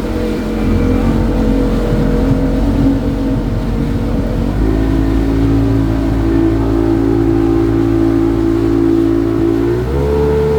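Boat motor running steadily under way, its pitch stepping up about four and a half seconds in and again near the end as the throttle is opened.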